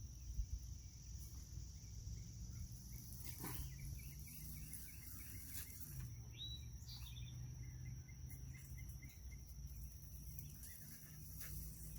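Outdoor ambience: a steady high-pitched insect drone, with a bird chirping in short runs of notes now and then, over a low background rumble.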